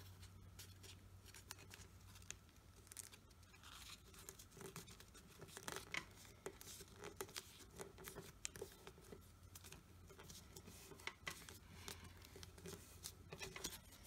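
Faint rustling and crinkling of a small square of origami paper being opened out, folded and creased by hand, in a scatter of short soft scrapes and taps over a low steady hum.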